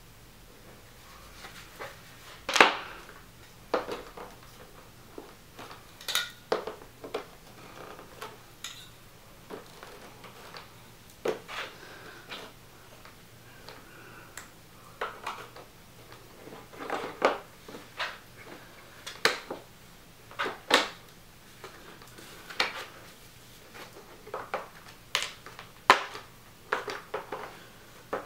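Irregular clicks and knocks of a plastic rolling utility cart being put together by hand: legs and connectors pushed into the perforated plastic baskets and snapped into place without screws.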